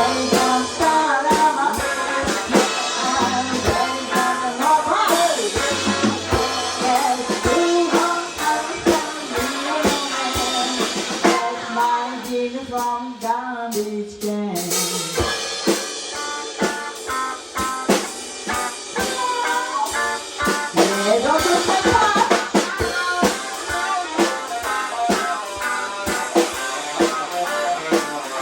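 A small rock band playing a rockabilly shuffle live: two electric guitars over a drum kit with rimshots, one guitar playing lead lines. About halfway through the drums thin out for a couple of seconds under bending guitar notes, then the full band comes back in hard.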